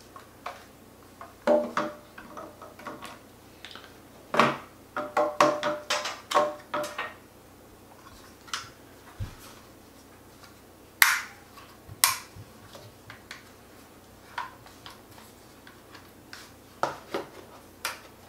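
Hard plastic clicks, taps and knocks as a DJI Mavic Mini remote controller is handled and fitted into the cutouts of a plastic hard case. A cluster of knocks comes about four to seven seconds in, and two sharp clicks come near the two-thirds mark.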